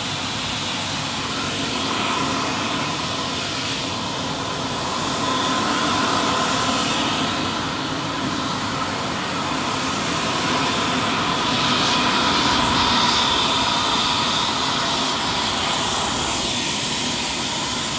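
Jet aircraft engine running steadily: a continuous rush with a high whine over it, swelling slightly a few times.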